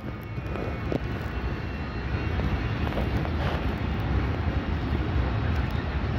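FS E656 electric locomotive running with a steady mechanical drone and low rumble, slowly getting louder.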